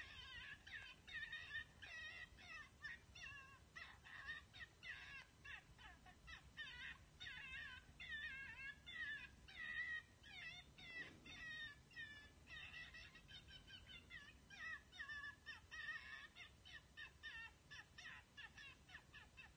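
Predator call playing a faint, fast string of high, wavering squealing distress cries, several a second, with a brief gap a little past halfway.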